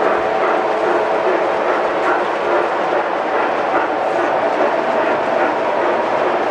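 A steady, even mechanical rattle and hum with no breaks.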